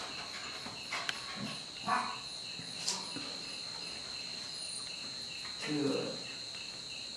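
Crickets chirping steadily, a high ringing trill pulsing about three times a second. A few brief, soft low sounds come about two seconds in and again, a little louder, near six seconds.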